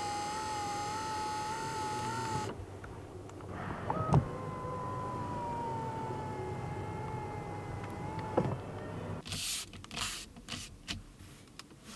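Genesis G90's electric seat motors whining steadily as the power seat adjusts. The first run stops about two and a half seconds in. After a click a second run starts a little higher in pitch, settles lower and stops with a click about eight and a half seconds in. A few soft clicks and rustles follow.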